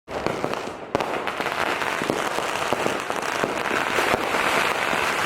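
Firecrackers going off in a dense, continuous crackle of many sharp pops.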